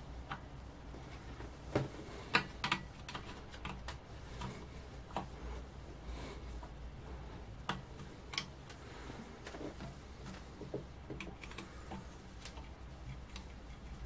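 Faint clicks and ticks of a screwdriver turning out the mounting screws of a small airbrush compressor's pump, with a few sharper metal clicks about two seconds in and again near eight seconds.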